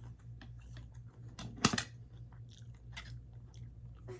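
Close-up chewing of a mouthful of kimchi fried rice, with many small wet mouth clicks. A single sharper knock about one and a half seconds in.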